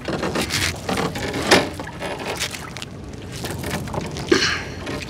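Water splashing and dripping as a wet gill net is hauled over the side into a small boat, with a few sharp knocks against the hull.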